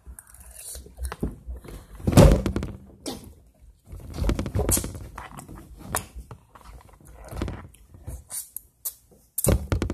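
Irregular knocks, bumps and rustles, the loudest a single thunk about two seconds in.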